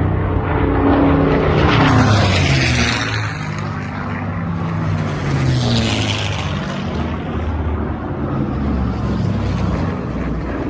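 Piston-engined propeller aircraft running, a steady drone whose pitch slides down about two to three seconds in as a plane passes, over a noisy rush.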